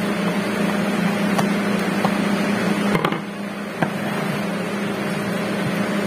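A few light clicks and knocks as the meat grinder's switch box and metal housing are handled, over a steady hum and hiss.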